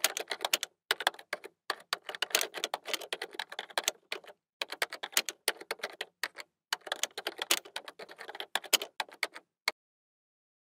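Typewriter typing sound effect: keys clacking in quick runs of strikes broken by short pauses, stopping about a second before the end.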